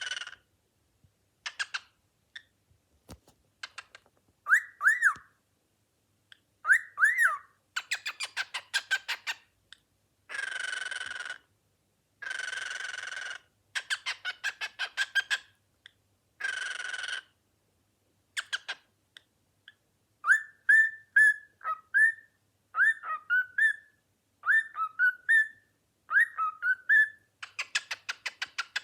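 Cockatiel calling in a string of separate phrases: rapid pulsed trills, several drawn-out calls about a second long, and from about two-thirds of the way through a run of short whistled notes that slide up and down.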